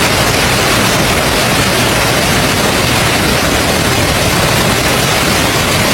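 Hail pounding down hard, a dense, steady clatter of countless small impacts with no break.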